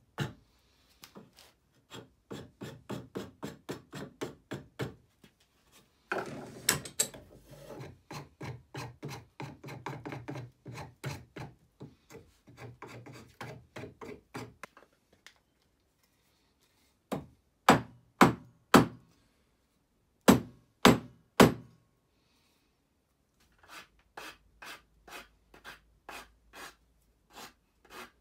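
Rhythmic strokes of a rasp on ash wood, about two to three a second, while a hammer handle is shaped. Past the middle come two groups of three or four loud, sharp knocks, and then lighter repeated strokes again.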